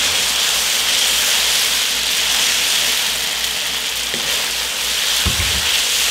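Chicken and sesame sauce sizzling with a steady hiss in an electric wok on high heat, stirred with a wooden spoon, as the cornstarch in the sauce thickens. A short low thump comes about five seconds in.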